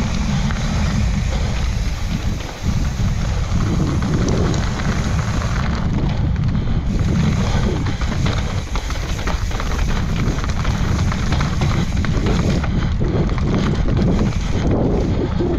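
Wind buffeting the camera microphone in a deep, steady rumble, over the dense clatter of a Yeti SB140LR mountain bike's tyres and frame rattling down a rough dirt trail.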